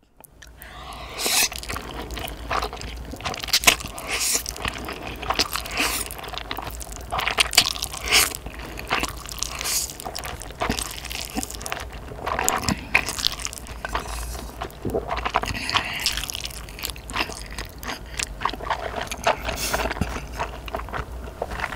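Slurping and chewing of mouthfuls of Carbo Buldak (creamy carbonara-style fire noodle) stir-fried ramen, a dense run of short wet slurps and mouth noises.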